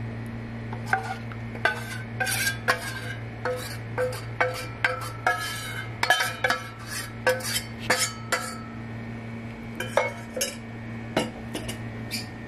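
Steel spoon scraping and clinking against a stainless-steel bowl as thick ground-rice batter is scraped out into a steel wok: a run of irregular clinks and scrapes over a steady low hum.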